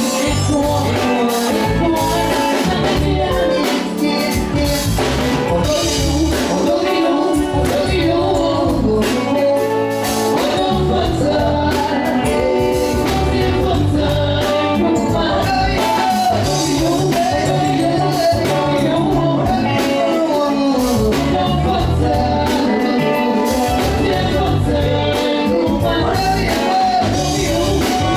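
Band music with a singer, over a steady beat of drums and bass.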